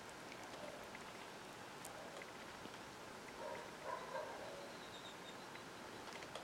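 Faint soft scraping and sticky sounds of a metal spoon spreading thick peanut butter over a slice of bread, with a few small light clicks. A brief faint whine-like tone rises out of it a little past the middle.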